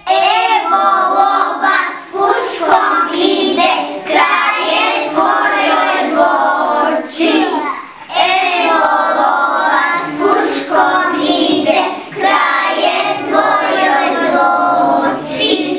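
A group of young kindergarten children singing a song together.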